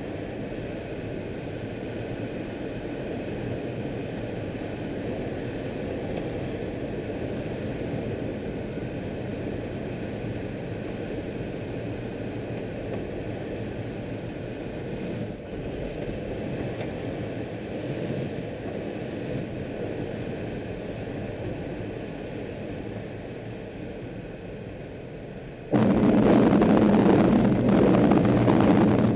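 Steady rush of air around a glider's cockpit on the landing glide. About four-fifths of the way through it cuts abruptly to a much louder rumble as the glider touches down and rolls along the runway on its wheel.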